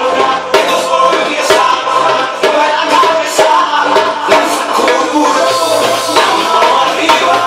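Loud DJ dance music with a steady beat, with live percussion playing along.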